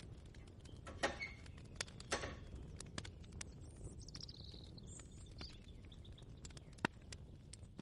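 Quiet kitchen ambience: scattered light clicks and taps, two short rustling scrapes near the start, and a faint high bird call falling in pitch about halfway through.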